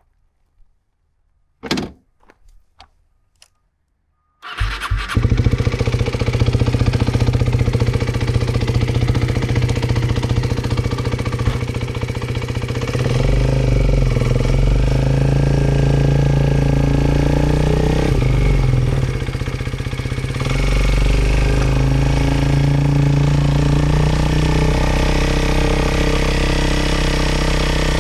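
A few faint clicks and a knock, then an Aprilia RS4 125's single-cylinder four-stroke engine comes in abruptly about four seconds in and runs steadily at idle, growing louder twice.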